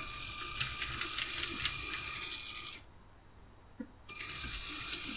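LEGO Powered Up train motor whining steadily as a toy train runs along plastic track, with a few sharp clicks. The whine stops about three seconds in and starts again about a second later as a train moves off once more.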